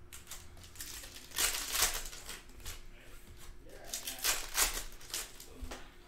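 Foil trading-card pack wrappers crinkling and tearing as Panini Mosaic Fast Break packs are opened and the cards handled, in several short bursts. The loudest come about a second and a half in and again around four to five seconds in.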